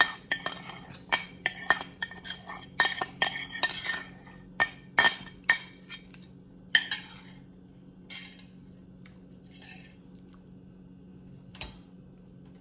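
Cutlery clinking and scraping against a dinner plate: a quick run of sharp clinks for the first several seconds, then only a few quieter taps.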